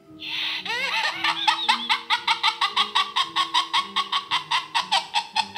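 Music with sustained low notes under a rapid, even run of high cackling chirps, about eight a second, starting just after the opening.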